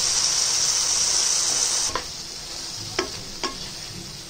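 Mutton liver sizzling in a frying pan. About two seconds in the sizzle drops sharply, and a wooden spatula stirs the liver, knocking against the pan three times.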